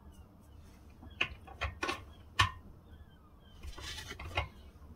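Metal parts of a pillar drill and its table being handled while the drill is stopped: four separate sharp clicks and knocks in the first half, then a brief clattering rattle near the end.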